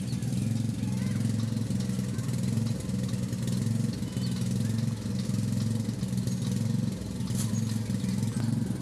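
An engine idling steadily, a low even drone with no change in speed.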